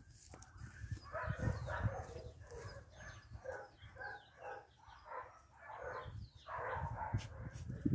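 A dog whining and grumbling in short, quick calls, about two or three a second, with low thumps of handling noise underneath.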